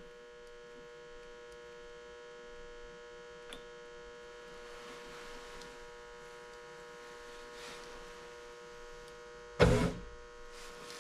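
Steady electric hum, even and unchanging, with a single loud knock about nine and a half seconds in.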